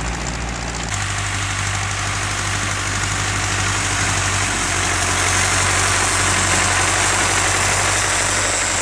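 Ursus tractor's diesel engine running steadily under load while pulling a plough, growing louder as the tractor comes close past.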